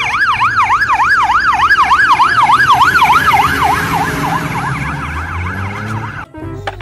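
Fire engine siren on the fast yelp setting, sweeping up and down about four times a second over the low rumble of the truck's diesel engine. The siren is loudest as the truck passes, then weakens and drops slightly in pitch as it drives away, while the engine rumble grows, and the sound stops abruptly near the end.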